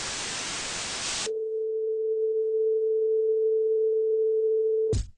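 A burst of static-like hiss for about a second, then a single steady electronic beep tone held for nearly four seconds. It cuts off as the first drum beats of the music come in at the very end.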